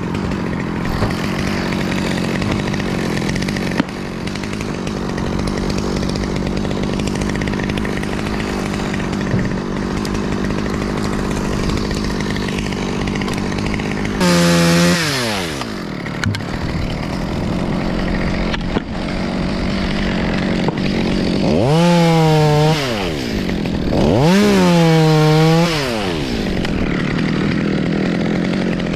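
Top-handle chainsaw idling steadily. It is throttled up three times, once about halfway through and twice in quick succession near the end, and each time it drops back to idle.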